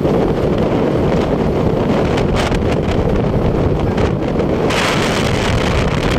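Wind buffeting the microphone on a speedboat running at speed over open sea, over a steady low rumble of the boat and water. A brighter hissing rush of water joins about three-quarters of the way through.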